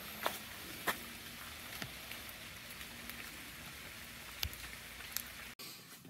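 Light rain in rainforest foliage: a soft steady hiss with a handful of scattered drip-like taps, stopping abruptly near the end.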